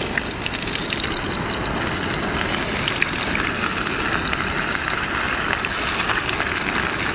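Whole jacksmelt dusted in cornstarch frying in smoking-hot oil in a small pan: a steady sizzle with fine crackling spatter.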